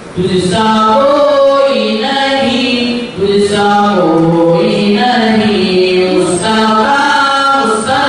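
Naat, an unaccompanied devotional song in praise of the Prophet Muhammad, sung by young male voices through microphones, in long held melodic phrases with short breaks for breath at the start and about three seconds in.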